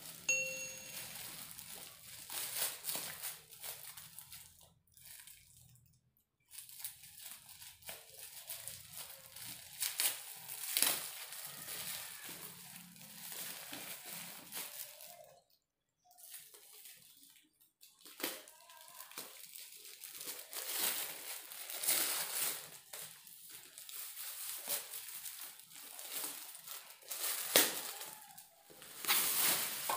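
Black plastic bag wrapping and packing tape crinkling and crackling in irregular bursts as a long parcel is unwrapped by hand, with a couple of short pauses.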